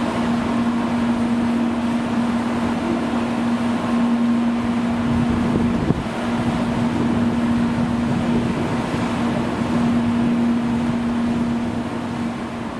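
Steady rushing background noise with a constant low hum running under it.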